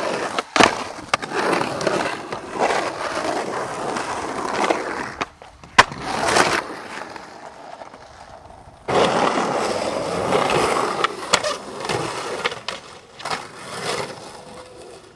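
Skateboard wheels rolling and carving across the concrete of an empty swimming pool, a rough, gritty roll that stops and starts again, with a few sharp clacks of the board hitting the surface.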